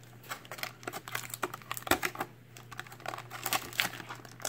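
Clear plastic blister tray clicking and crackling as it is flexed and small figure pieces are pried out of it by hand: a run of irregular sharp clicks, the sharpest about two seconds in.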